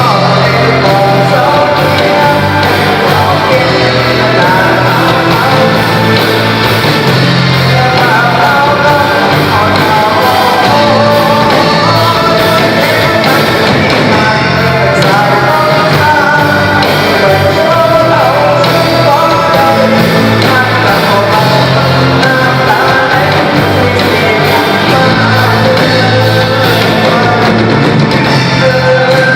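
Band playing loud rock-style music with a singer.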